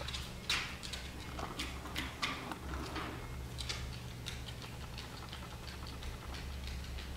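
A Scottish terrier's claws clicking and tapping irregularly on wooden floorboards as it moves about, with rustles of toys in the first few seconds.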